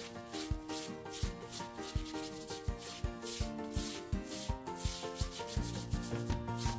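Background music with a steady beat: plucked, guitar-like notes over a regular low drum thump and bright rustling percussion.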